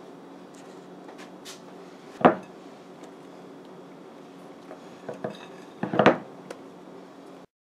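Kitchen utensil knocks and clinks against a glass mixing bowl as whipped cream is scooped out. There is one sharp knock about two seconds in and a quick cluster of clinks near the end, over a steady low hum.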